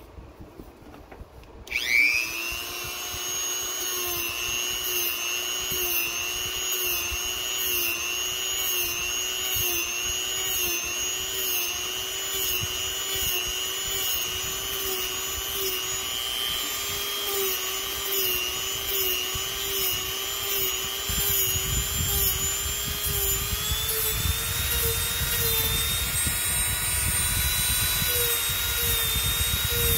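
Handheld rotary tool switched on about two seconds in, spinning up and then running with a steady high whine while its bit carves into foam. The pitch wavers with the load and climbs a little near the end, with a low rumble joining in the last third.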